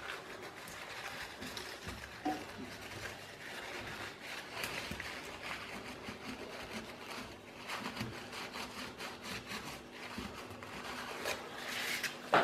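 Cloth in a gloved hand rubbing and wiping the copper commutator of a DC motor's armature to clean it, an irregular scrubbing and handling noise with a few small knocks.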